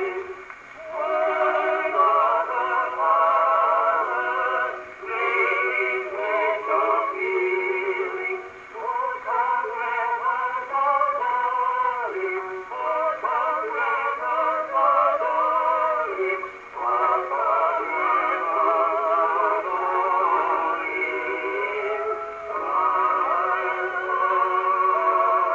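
A 1915 Columbia wind-up phonograph playing a 78 rpm record through its acoustic reproducer. The music sounds thin and boxy, with no deep bass or bright treble. The wavering melody comes in phrases with short breaks every few seconds.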